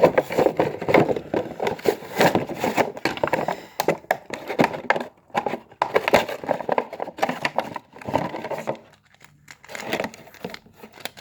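A toy truck's retail packaging being opened by hand: irregular crinkling and clicking of cardboard and plastic, pausing briefly about five seconds in and again near nine seconds.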